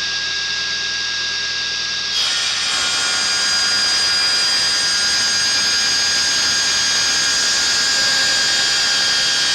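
Electric saw running at full speed with a steady whine, then cutting through 3/4 inch plywood from about two seconds in, which adds a dense, louder cutting noise over the motor.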